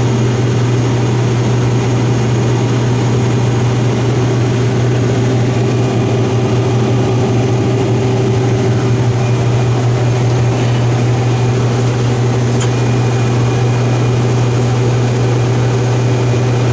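Combine harvester running with a steady, unchanging low drone of engine and machinery.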